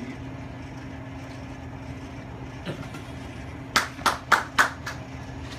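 Five quick, sharp crackles at about four a second, a little past the middle, from hands working the boiled balut egg over its paper wrapper, over a steady low hum.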